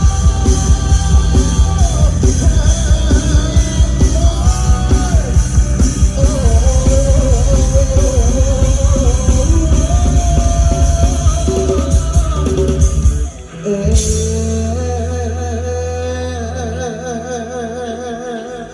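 Rock band playing loud over drums, bass and guitar with a singer's wavering voice; about 13 seconds in the band stops on a final hit and a held chord with a wavering note rings on, slowly fading, as the song ends.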